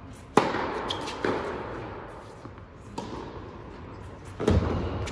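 Tennis racket strikes on the serve, twice: sharp hits just under half a second in and again about four and a half seconds in, each echoing through a large indoor tennis hall, with lighter knocks of the ball in between.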